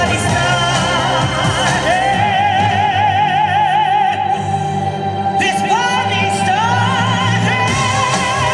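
Music: a singer in an operatic style holding long notes with strong vibrato, sliding up to new notes a few times, over steady instrumental accompaniment.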